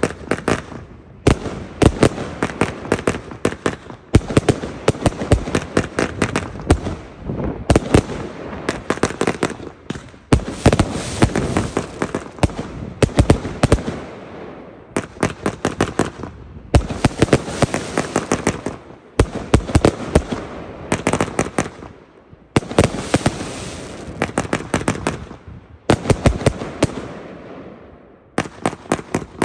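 Lesli 'Prezident Piro' 144-shot 25 mm firework battery firing in rapid salvos: tight clusters of sharp bangs as the shells launch and burst, each volley fading into a hiss before the next, about a dozen volleys with short gaps between them.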